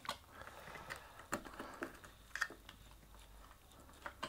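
Faint plastic clicks and creaks from a snap-together external hard disk enclosure being pried open by hand, a handful of sharp clicks a second or so apart as its clips give.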